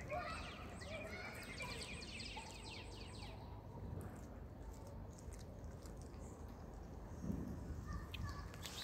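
Small birds twittering: a rapid run of short, high, falling chirps over the first three seconds or so, over a steady low outdoor background noise.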